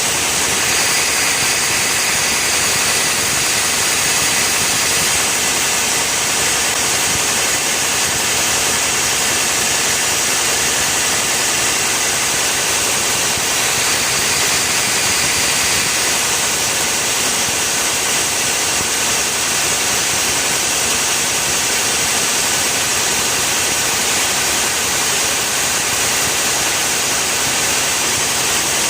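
Steady, unbroken machine noise, a loud hissing engine-like din that holds the same level and pitch throughout.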